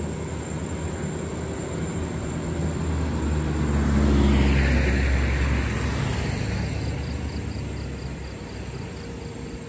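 Road traffic: a loaded sugarcane truck's engine running at low revs as it pulls away, while an oncoming vehicle passes close about four seconds in, its engine and tyre noise swelling and then fading.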